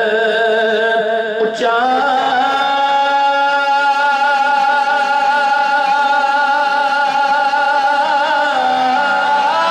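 A man singing a long held note in a Punjabi devotional song, with a slight waver in the voice. The pitch shifts near the end. A brief click comes about a second and a half in.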